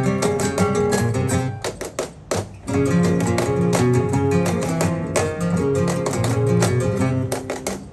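Flamenco acoustic guitar playing with a group clapping palmas in a quick, steady rhythm, with a short break about two seconds in.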